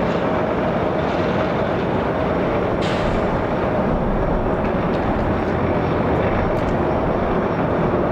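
Jet engines of an arriving Boeing 767-400ER airliner: a steady roar with a held whine.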